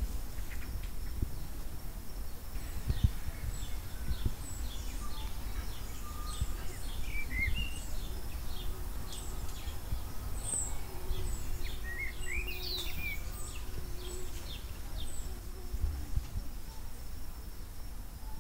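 Forest birds chirping and whistling: a busy run of short high chirps and quick rising whistles, thickest through the middle, over a steady low rumble.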